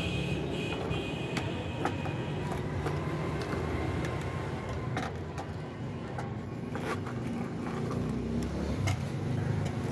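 Light plastic clicks of pens being lifted out of an acrylic display stand and knocking against it, a few scattered clicks over a steady low background rumble.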